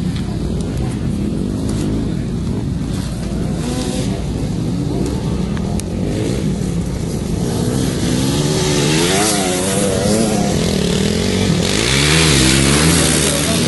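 Dirt bike engines running and revving, the pitch rising and falling. About twelve seconds in, one rides close past, louder.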